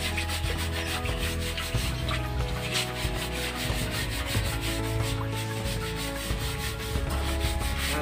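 Wire bird cage being scrubbed by hand with a scrub pad: quick, repeated rubbing strokes against the wet wire mesh, over background music.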